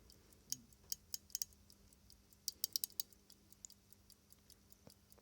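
Vintage Omega pocket watch being wound at the crown: sharp ratchet clicks in short irregular runs through the first three seconds, then only the faint, quick ticking of the running movement.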